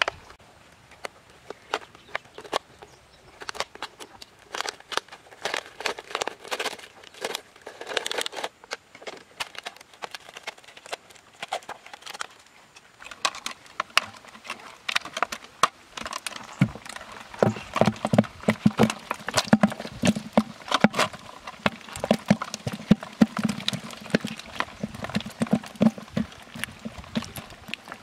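A plastic bag crinkling and rustling in the hands, with many quick clicks and taps. The sound gets busier and fuller a little past the middle.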